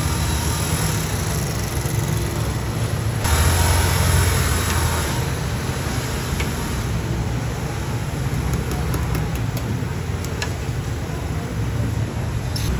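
Steady roar and hiss of a gas-fired boiling-water cooker at a dumpling stall. It swells louder for a couple of seconds about three seconds in, and a few light clicks come near the end.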